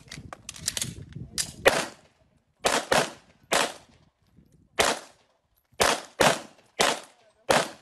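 Pistol shots from two shooters firing semi-automatic pistols side by side: about a dozen sharp cracks at irregular intervals, sometimes two in quick succession. A low rumble sits under the shots in the first two seconds.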